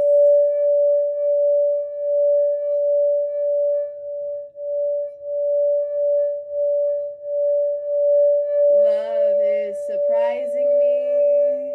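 Sacral-chakra singing bowl sung around its rim: one steady, pure, ringing tone that swells and fades in slow, even pulses. About nine seconds in, a woman's voice briefly sings or tones over it.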